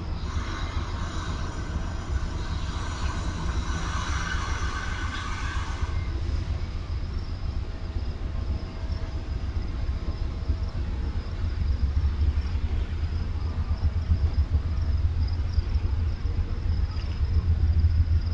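Amtrak Southwest Chief's bi-level Superliner cars rolling out of the station: a steady low rumble of the passing cars that grows heavier toward the end. Faint high tones ring over it during the first six seconds.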